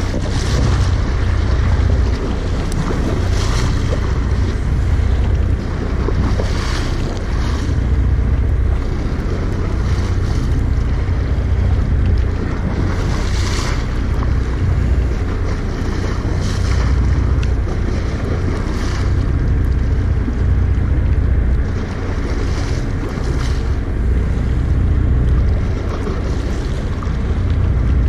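Wind buffeting the microphone in a loud low rumble over the open sea, with waves washing and splashing against the boat every few seconds.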